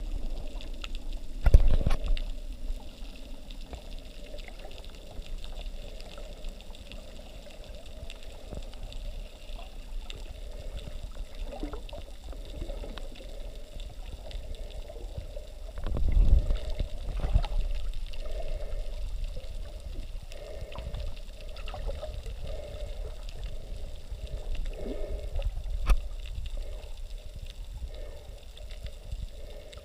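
Muffled underwater water noise heard through a submerged camera, with gurgling and rushing water. Loud low thuds and surges come about a second and a half in and again around sixteen seconds in, with a smaller knock near the end.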